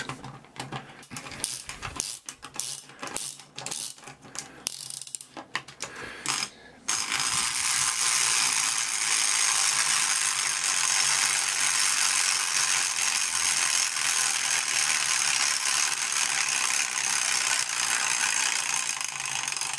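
3D-printed plastic clockwork motor running, its escapement wheel and pin fork clicking. Irregular clicks for the first seven seconds or so, then a steady, fast, continuous rattle. The fork is vibrating hard enough to lift out of place, so the top plate is held down by hand.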